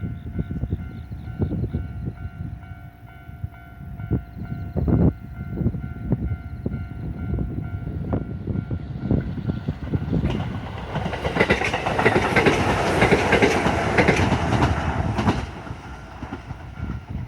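Level-crossing warning alarm sounding with steady repeating tones. Then, from about ten seconds in, a train passes over the crossing for about five seconds, its wheels clattering on the rails.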